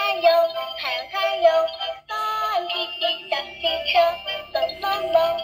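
Tayo the Little Bus plastic toy bus playing an electronic children's song with a synthetic sung melody through its small built-in speaker, with a brief break about two seconds in.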